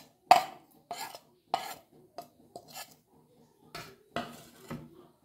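A metal spoon scraping and tapping against a plate and a steel bowl as green leaf paste is pushed off into flour. There are about eight sharp clinks and scrapes, roughly two a second, the loudest about a third of a second in.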